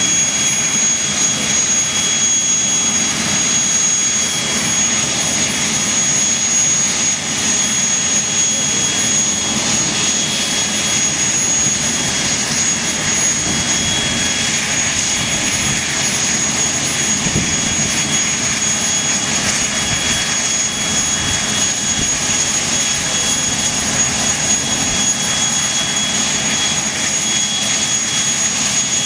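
Avro Vulcan's Rolls-Royce Olympus turbojet engines running steadily on a ground run: a constant loud rushing noise with a steady high-pitched whine on top.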